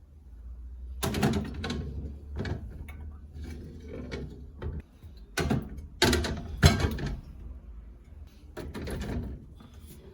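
Kitchen clatter: a run of knocks and bumps as things are handled, set down and put away, the loudest about six seconds in, over a steady low hum.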